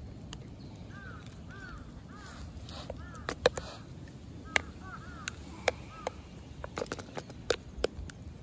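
Sharp clicks from about three seconds in, the loudest near the middle, as a cat eats dry kibble from a ceramic dish and a second bowl is held over it. A bird calls repeatedly in short arched notes, often in pairs, through the first six seconds.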